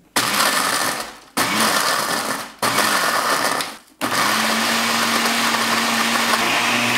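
Countertop blender pulsing three times, about a second each, then running steadily from about four seconds in, grinding cornstarch biscuits into fine crumbs.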